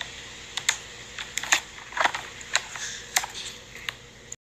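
Plastic CD case being handled: about a dozen light, irregular clicks and taps.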